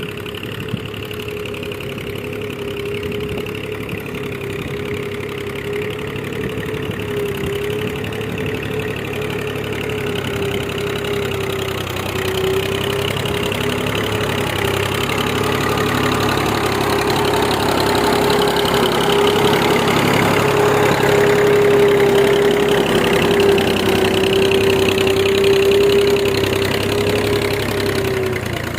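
Massey Ferguson 135 tractor engine running steadily, growing gradually louder through the middle and easing off slightly near the end.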